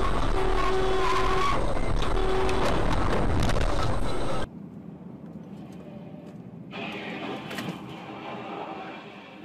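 Car and road noise from dash-cam footage. It is loud at first, with a steady tone sounding three times in short spells, then cuts off abruptly about four and a half seconds in to quieter road noise that swells again near the end.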